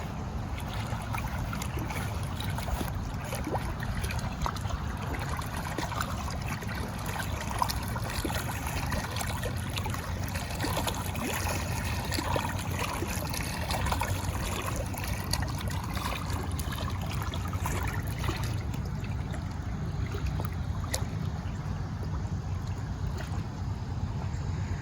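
Steady rushing of running water over a constant low rumble.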